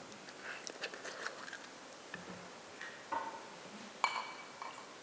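Light taps and clinks of a glass being handled for a sip of water. There are small clicks in the first second and a half, then two ringing glassy clinks about three and four seconds in, the second the loudest.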